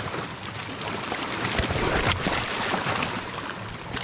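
Sea water washing and sloshing with wind noise on the microphone, and a couple of brief knocks about halfway through.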